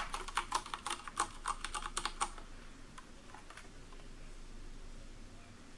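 Typing on an Akko 9009 Retro mechanical keyboard with Cherry MX Brown tactile switches and stock keycaps, a quick run of key clicks that stops a little over two seconds in, followed by a few faint clicks.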